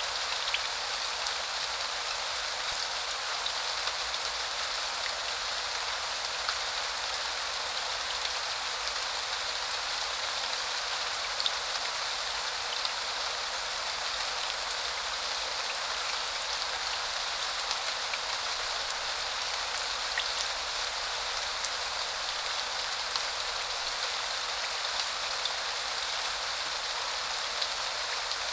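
Steady rain falling: an even hiss of rain on surfaces, with scattered sharper drop ticks.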